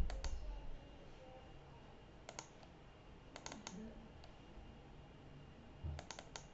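Clicking at a computer desk: four small groups of two to four quick, sharp clicks, with a low thump at the very start and another just before the last group.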